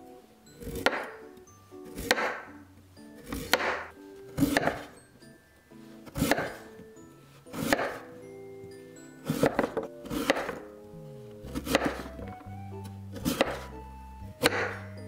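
Chef's knife cutting through raw peeled sweet potato onto a cutting board: one crisp cut about every second and a half, each ending on the board.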